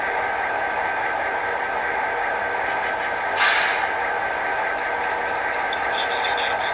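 HO-scale model diesel locomotive's sound decoder playing a steady diesel engine running sound, with a short hiss about three and a half seconds in.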